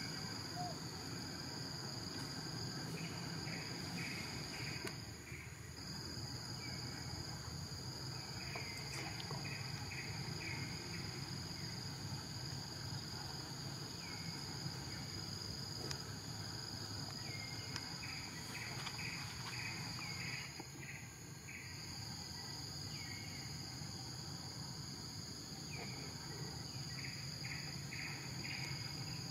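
A steady, high-pitched chorus of insects such as crickets or cicadas, with short runs of quick chirps every few seconds. The drone drops out briefly twice.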